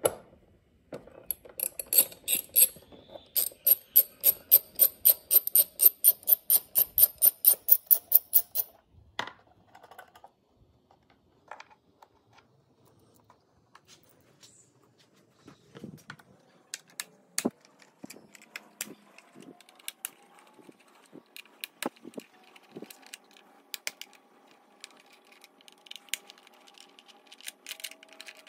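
Socket ratchet clicking in a fast, even run of about five clicks a second for some seven seconds as an airbox bolt is turned out. This is followed by scattered single clicks and knocks.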